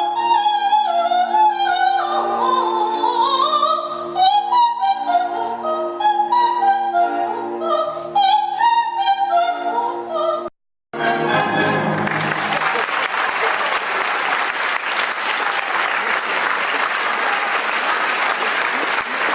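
Operatic solo voice singing with orchestral accompaniment, with held and gliding notes. After a sudden break about ten seconds in, steady audience applause.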